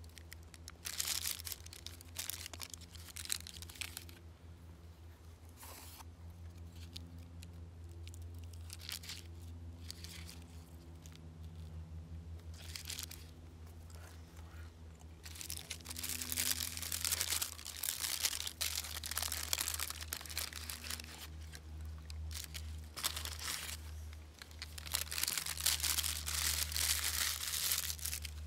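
Paper food wrappings being unfolded and handled, crinkling and rustling in irregular bursts that are loudest around halfway through and near the end. A steady low hum runs underneath.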